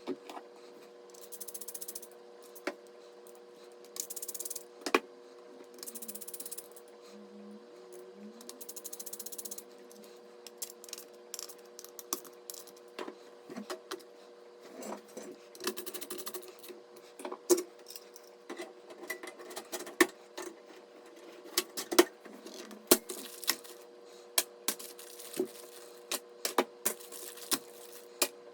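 Hands working on PC parts: irregular clicks, taps and small rattles of plastic and metal, with a few short rustling stretches in the first ten seconds, over a steady low hum.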